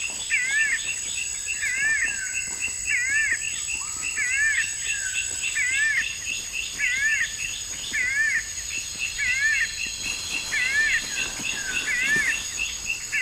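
Tropical forest ambience: insects trilling in steady high tones with a fast pulsing chirp, and a bird's repeated zigzag chirping call about once a second.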